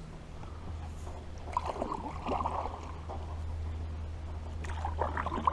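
Water gurgling and trickling around a small jon boat, in two bouts: about a second and a half in, and again near the end, over a steady low hum.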